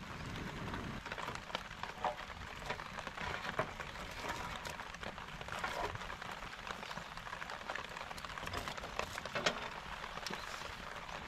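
Steady rain falling, with many scattered sharp taps and ticks through it; the loudest tap comes about nine and a half seconds in.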